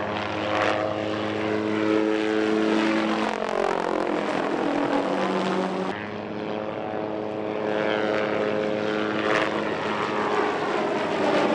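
Aircraft engine drone from a low-flying aircraft; the pitch drops about four seconds in as it passes, and the drone builds again after.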